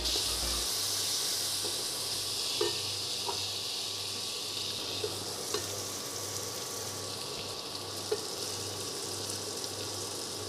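Chopped onions and capsicum frying in hot oil in a kadhai, a steady sizzle, with a wooden spatula stirring through them and knocking against the pan a few times.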